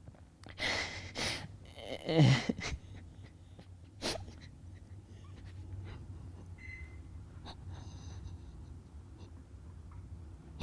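A man breathing audibly: a couple of heavy breaths in the first few seconds, one with a brief voiced catch, and a shorter breath at about four seconds, then quiet room tone.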